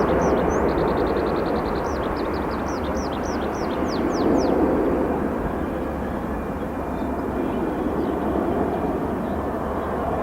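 Distant jet roar of a departing Boeing 787-8 climbing away, a steady rumble slowly fading. A songbird chirps rapidly over it in the first three seconds, with a quick trill about a second in.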